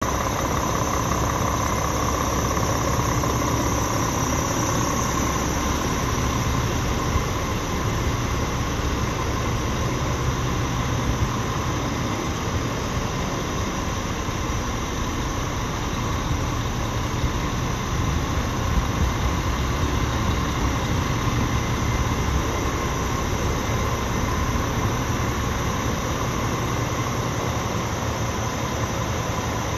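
Scania R450 Euro 6 truck's 13-litre six-cylinder diesel idling steadily, a low rumble with a steady high-pitched whine over it.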